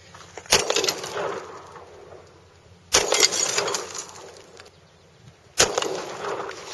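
A 9mm pistol fired three times, about two and a half seconds apart, at a porcelain toilet. Each shot is a sharp crack followed by a long fading echo.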